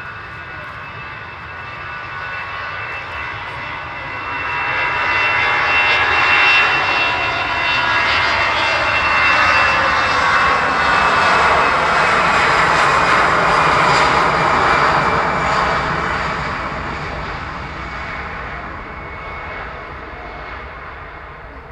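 Aircraft flying past, its engine noise with a high whine swelling to a peak about a quarter of the way in, holding loud for several seconds and then fading away.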